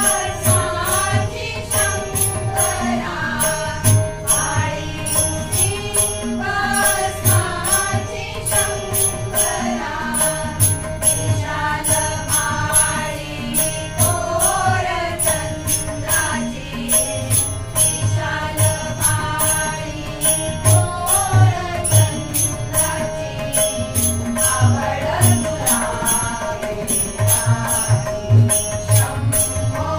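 Group devotional singing of a Ganesh bhajan, with a harmonium holding a steady drone, a hand drum beating a regular rhythm and high clicks keeping time.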